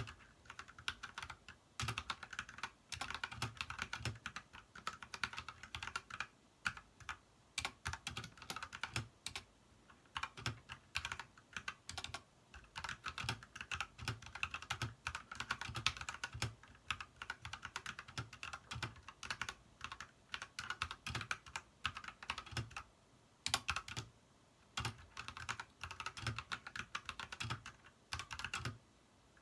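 Typing test on an Ajazz mechanical keyboard fitted with new keycaps: rapid, irregular key clacks in flurries, with brief pauses.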